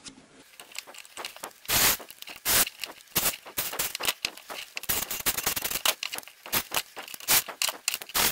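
Irregular clicks, scrapes and knocks of hand work: metal hose clamps, rubber coolant hose and a cordless drill-driver handled on a workbench while the clamps are fitted to the heater's hose stubs.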